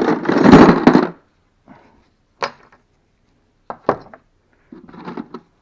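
Small steel tools such as drill bits and cutters clattering together as a handful is dropped, followed by a few single metal clinks as pieces are set down one at a time.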